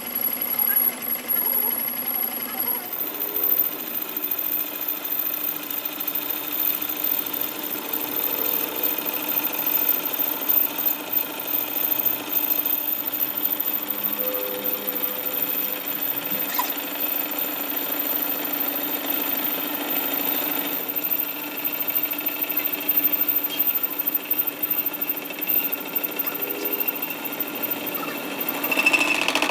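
Metal lathe running steadily while a single-point cutting tool bores the inside of a heavy truck wheel hub, the machine's hum mixed with the rough noise of the cut.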